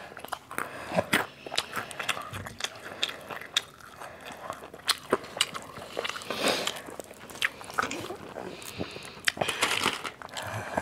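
Close-up mukbang eating sounds of crispy fried chicken and a soft bread roll: irregular crunches, mouth clicks and chewing.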